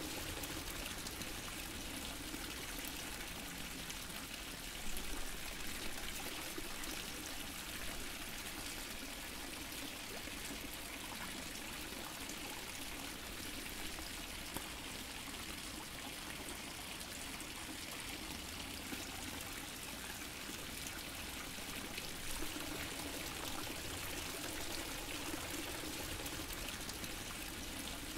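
A water fountain splashing and trickling steadily, with a few slightly louder splashes about five seconds in.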